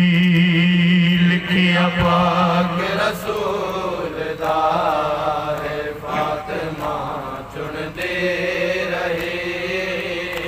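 Male voices chanting a noha (mourning lament) in a rhythmic, sing-song recitation, amplified through a horn loudspeaker, with a steady low hum under the first few seconds.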